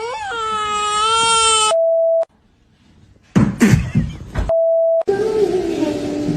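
A loud, drawn-out wailing cry that rises in pitch and then holds, cut off by a short steady beep; after a brief gap come a few knocks and rustling, then a second identical beep.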